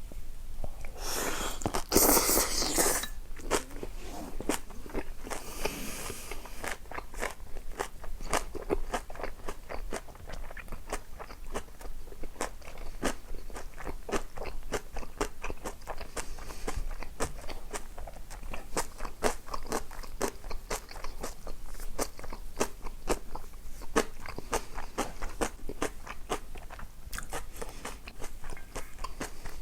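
Close-miked crunching and chewing of crisp food, a steady run of small crunches with a louder bite about two seconds in.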